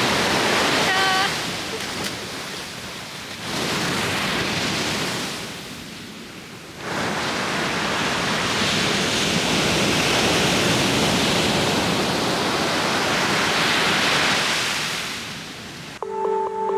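Ocean surf breaking and washing onto a sandy beach: a steady rush of waves that dips in level twice. A short high call about a second in, and music comes in just before the end.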